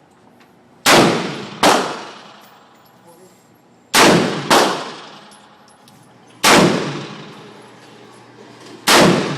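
AR-15 rifle shots: six sharp reports, mostly in quick pairs about half a second apart, each followed by a long echoing tail.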